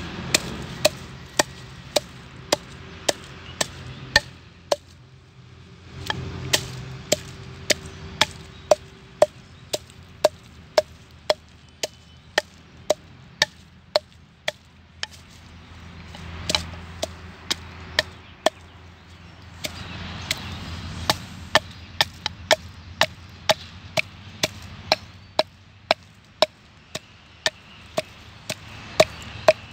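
Wooden pestle pounding red chilies in a clay mortar: steady sharp knocks about twice a second.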